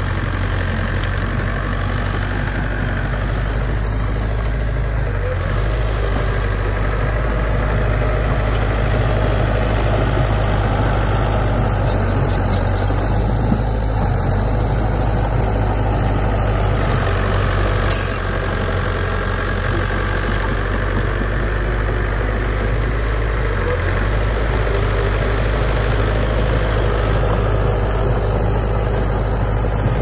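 Komatsu D31P bulldozer's diesel engine running steadily, mostly low-pitched, with a single sharp knock about two-thirds of the way through.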